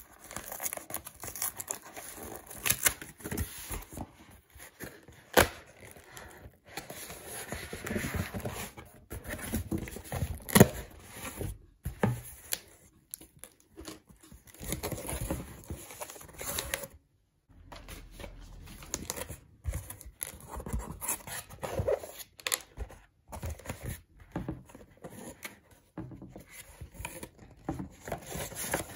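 Cardboard mailer box being opened by hand: flaps tearing, scraping and rustling, with scattered sharp knocks as the cardboard is pulled and bent. Later there is paper and book handling, with a brief silent gap about two-thirds of the way in.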